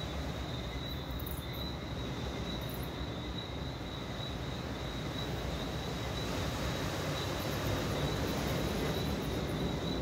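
Tropical night ambience: a steady, high, gently pulsing chorus of insects over a low, steady rumble.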